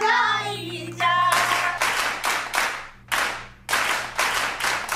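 A group of people clapping hands together in a steady rhythm, about two claps a second, after a brief sung phrase at the start, over a low steady hum.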